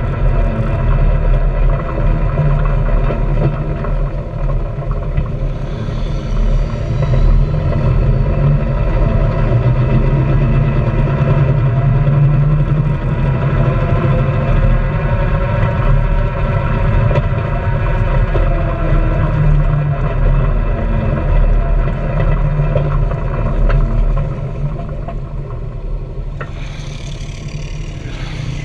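Honda Pioneer 700-4 side-by-side's single-cylinder engine running steadily while driving. The engine eases off, and the sound drops in level, a few seconds before the end.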